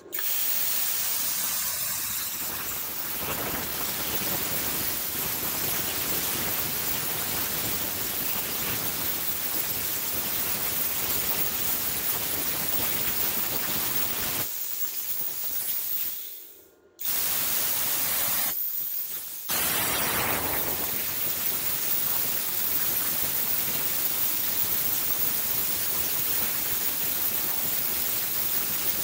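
Vevor Cut 50P plasma cutter cutting 3/16-inch steel flat bar at 25 amps and 60 PSI, with a steady loud hiss of air and arc. About halfway through it cuts out, going almost silent, then starts again, and it drops out briefly once more a couple of seconds later. It is cutting cleanly but keeps going on and off, which the operator puts down to running at 25 amps on a 20-amp household circuit.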